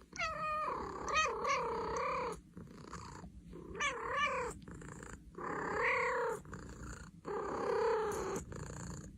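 Domestic cat making a series of drawn-out, wavering meows, about five or six calls with short pauses between them, some falling in pitch.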